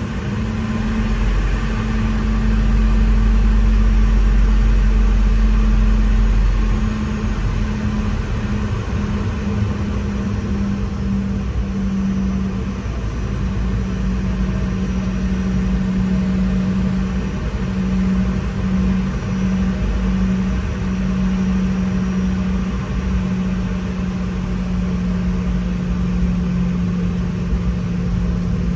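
Boeing 717 jet engines running steadily: a loud, even rumble with a wavering hum. The lowest rumble is stronger for the first few seconds.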